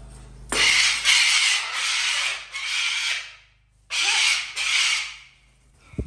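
Parrot screaming: harsh, raspy screeches in two bouts, a long one starting about half a second in and a shorter one about four seconds in.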